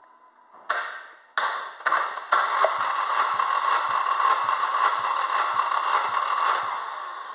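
Chevrolet Lacetti 1.6-litre 16-valve four-cylinder engine being cranked by its starter for a compression test, not firing: a few short bursts about a second in, then steady cranking with a regular pulse about two and a half times a second, winding down near the end.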